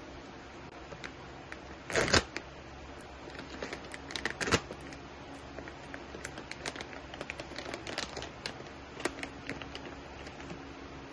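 Plastic bag of Mosquito Bits granules crinkling and crackling as it is handled, in irregular bursts of sharp crackles. The loudest burst comes about two seconds in, another cluster around four and a half seconds, then scattered lighter ticks.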